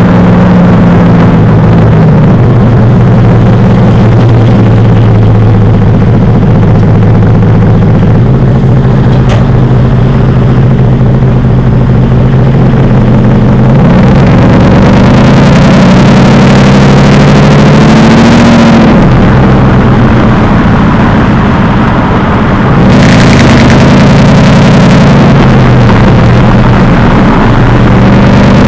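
Mercedes-Benz SLR McLaren's supercharged V8 running through an aftermarket Devil Sports exhaust. It idles steadily, then is revved up about halfway and falls back, and revved again more briefly near the end.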